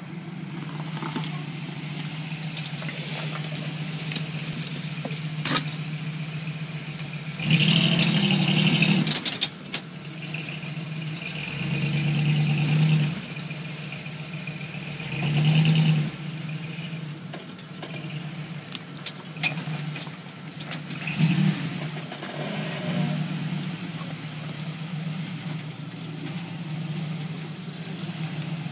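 A lifted Jeep CJ's engine running steadily at low revs while rock crawling, with the throttle pressed four or five times in short surges of one to two seconds as the Jeep climbs a rock ledge. A few sharp knocks are mixed in.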